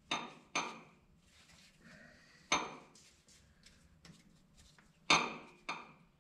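Light taps of a hammer's wooden end on a piston crown, driving the piston and its new rings out of a ring compressor into the cylinder bore of a Minneapolis Moline U302 engine. Five taps, two close together, one alone, then two more, each with a short metallic clink.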